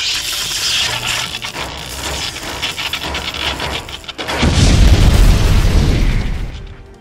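Electric-attack sound effect: dense crackling for about four seconds, then a loud, deep explosion boom that dies away near the end as the toy vending machine is blasted apart.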